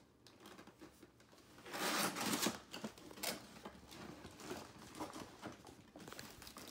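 A cardboard box being opened and handled: flaps and the packing inside scraping and rustling, loudest in a rough burst about two seconds in, then lighter scrapes.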